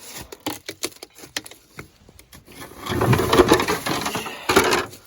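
Car parts being handled and moved: a run of light knocks and clicks, then a louder scraping clatter about three seconds in, with one more short clatter near the end.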